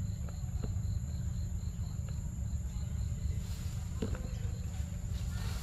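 An insect chirping in a rapid, even, high-pitched pulse that stops about three seconds in, over a steady high whine and a constant low rumble on the microphone. A few faint clicks sound, one about four seconds in.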